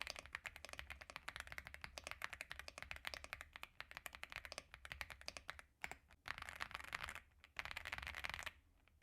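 Fast typing on a stock Aula F75 mechanical keyboard, with dense rapid keypress clicks. After about five and a half seconds it breaks into shorter bursts with brief pauses.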